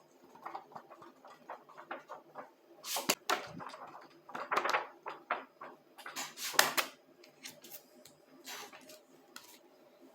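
Packaging being handled and opened around a book: irregular rustling and crinkling with scattered clicks and taps, loudest in bursts about three, four and a half, and six and a half seconds in.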